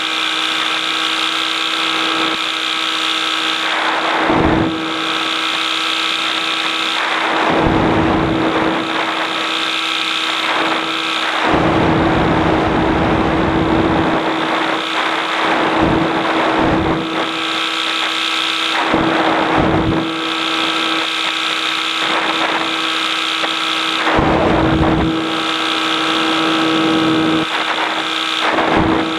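Light aircraft engine and propeller droning steadily at a constant pitch, heard in the cockpit, with gusts of wind rushing over the microphone every few seconds.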